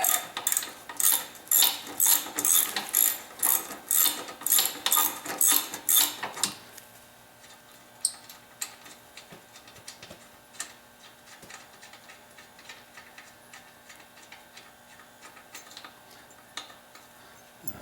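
Socket ratchet wrench with a 14 mm socket clicking as it backs out a bolt, in quick regular swings about twice a second. After about six and a half seconds it turns to faint, scattered ticks.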